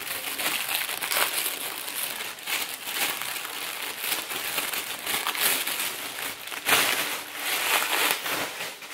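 Thin plastic carrier bag crinkling and crackling continuously as it is handled and ripped into strips, loudest about two-thirds of the way through.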